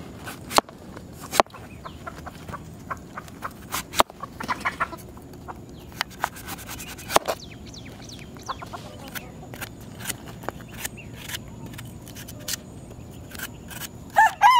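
A knife cutting a guava knocks on a plastic cutting board in scattered sharp clicks, with chickens clucking in the background. Near the end a rooster starts to crow loudly.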